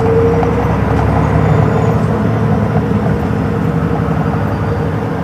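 Hino Rainbow II city bus's inline-six diesel engine running under way, heard from inside the passenger cabin as a steady low drone.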